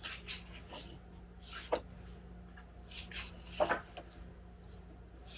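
Pages of a glossy album photobook being turned by hand: several short paper rustles and swishes, with a faint steady hum underneath.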